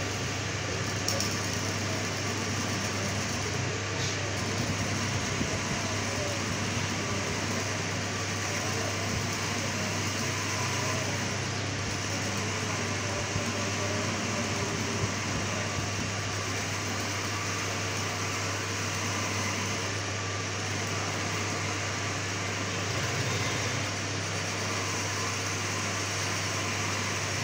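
Metal lathe running steadily with a low hum as its cutting tool turns down the bearing seat on an electric motor's rotor shaft, sizing it so the bearing will fit tight.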